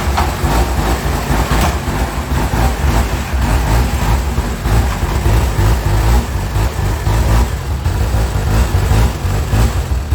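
Snowmobile engine running steadily and loud, with a constant rushing noise over it.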